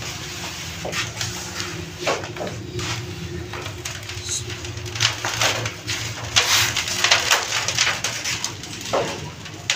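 Dry, flaky patisa (soan papdi) strands rustling and crackling as gloved hands pull them apart and toss them, over a steady low hum.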